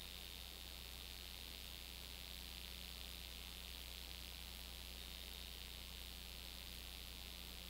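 Steady hiss with a low electrical hum: the empty soundtrack of a silent home-movie film transfer. A faint thin high whine sits on top and comes and goes.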